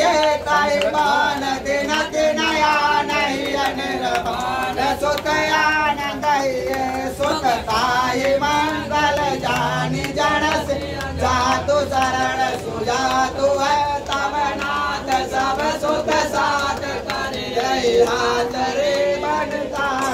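Several voices chanting a Hindu devotional hymn together in a continuous, flowing melody.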